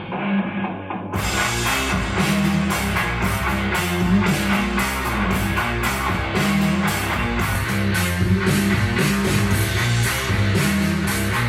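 Rock music with a drum kit and guitar keeping a steady beat. For the first second it sounds dull, with no treble; about a second in it suddenly opens up to full brightness.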